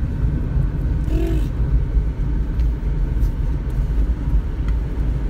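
Steady low rumble of a running car heard from inside the cabin: engine and road noise, with a brief faint pitched sound about a second in.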